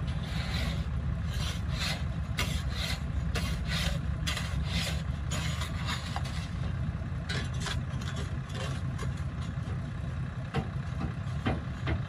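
Bulldozer's heavy diesel engine running steadily while it works soil, with irregular scraping and rattling bursts over the drone.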